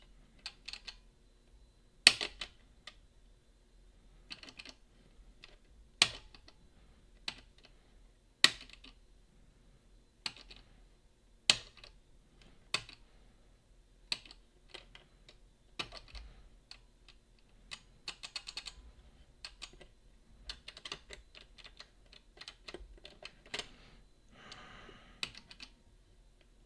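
Irregular sharp metallic clicks of lock picks working the levers of a Boda 429 eight-lever deadbolt as the levers are lifted toward their gates, with a brief scrape near the end.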